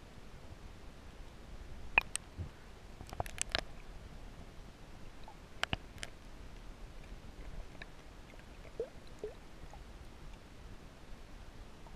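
Muffled underwater sound heard by a submerged camera: a steady low rumble of moving water. A few sharp clicks and knocks cut through it, the loudest about two seconds in, then a quick cluster a second later and two more near the middle, with two faint short tones a little after.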